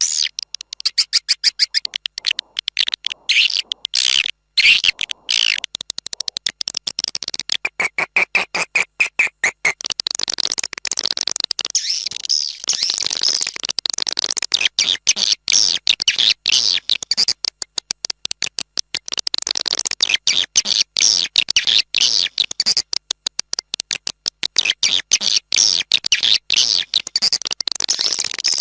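Swiftlet-house lure recording of edible-nest swiftlet calls: fast runs of dry clicks mixed with high twittering chirps, repeating without pause, with a lower buzzy trill for about two seconds near the end of the first third.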